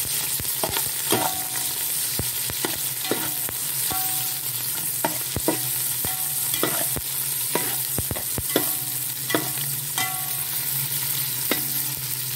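Sliced onions sizzling in hot oil in a large metal pot as they are fried to brown, with a steady hiss. A metal spoon stirring them scrapes and clinks against the pot about once a second, each clink ringing briefly.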